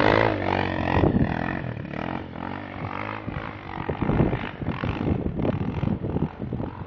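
ATV engine revving as the quad pulls away across snow, growing fainter after about a second as it rides off, with a rough, uneven note.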